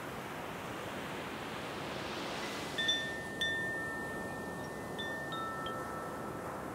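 Wind chimes ringing: a few clear metal tones struck about three seconds in and again near five seconds, each ringing on, over a steady rush of surf.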